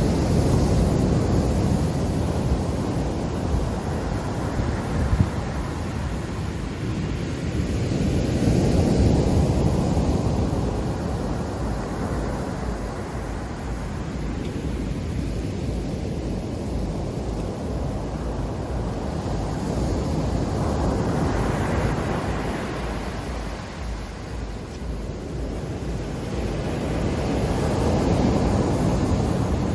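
Black Sea surf breaking and washing on the shore, a steady roar that swells and eases in broad surges several seconds apart.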